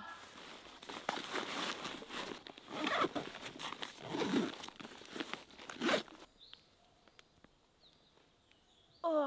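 Rustling and crunching close to the microphone for about six seconds, then it stops and faint bird chirps are heard.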